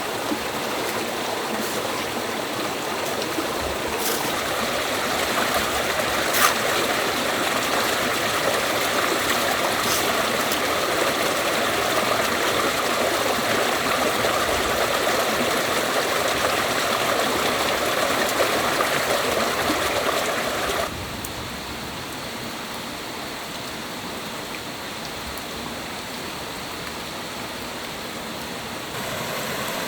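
Stream water rushing steadily, with a few light clicks in the first ten seconds. About two-thirds of the way through it drops suddenly to a quieter flow.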